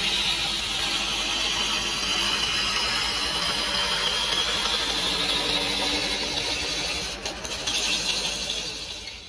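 Wood lathe running while a hand-held gouge cuts a spinning wooden handle blank, a steady scraping hiss of the tool peeling off shavings. The sound dips briefly a little after seven seconds and dies away near the end.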